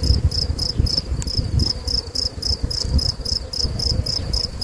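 Honeybees buzzing around an open hive, under a steady high insect chirp that repeats about five times a second and an uneven low rumble.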